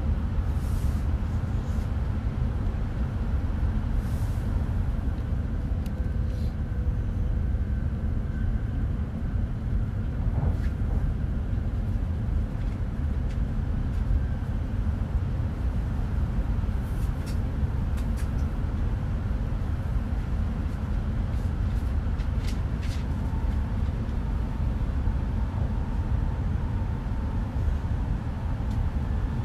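Cabin running noise of an E5 series Shinkansen car: a steady low rumble with faint steady tones and a few light clicks. A faint whine comes in during the last third as the train slows for its next station stop.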